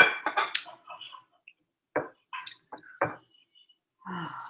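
Knife and fork clinking and scraping on a plate while cutting steak: a quick cluster of sharp clicks in the first second, then a few scattered clicks and short scrapes.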